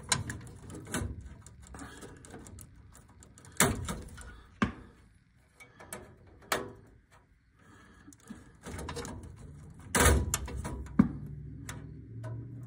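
Wire connectors being pulled off and pushed onto the terminals of a furnace control board, heard as irregular sharp clicks and snaps with wires rustling between them. There is a heavier bump about ten seconds in.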